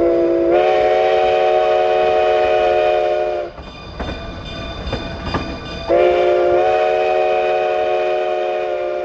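Chime whistle of a Cumbres & Toltec K-36 narrow-gauge steam locomotive sounding two long blasts, each about three seconds long, with the running train audible in the gap between them. The first blast steps up slightly in pitch just after it starts.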